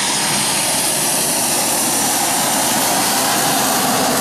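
Fighter jet's engines running, a loud, steady rush of jet noise.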